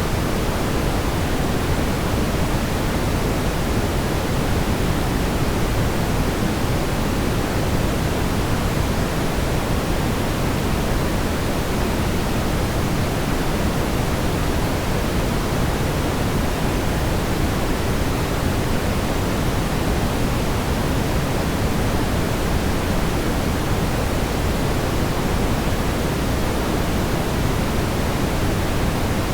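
Steady brown noise: an even, unbroken rush of synthetic noise, heaviest in the low end and falling off toward the highs, with no change in level.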